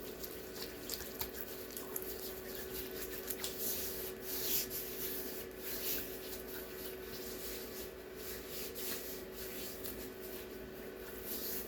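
Dry body brush rubbed over skin in repeated, irregular scratchy strokes, over a faint steady hum.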